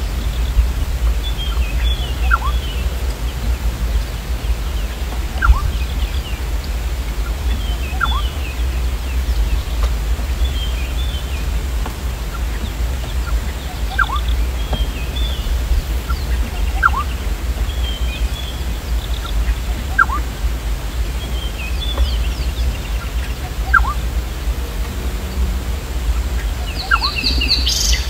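Birds calling at a waterhole: a short rising whistle repeated about every three seconds, with bursts of higher twittering chirps between. Under them runs a steady low rumble that is the loudest part of the sound.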